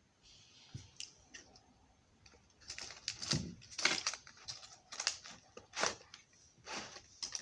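Handling noise: faint clicks, then from about three seconds in a run of sharp clicks, taps and scrapes, with a dull bump among them.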